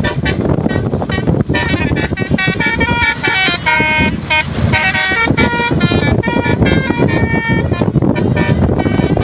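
Bus basuri (telolet) multi-tone horn playing a quick tune of changing notes, with wind buffeting the microphone underneath.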